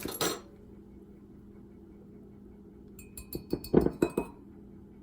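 A utensil clinking several times against a glass bowl or jar about three to four seconds in, with a brief ringing after the strikes, while honey is spooned in for the dressing. A short clatter comes right at the start, and a faint steady hum runs underneath.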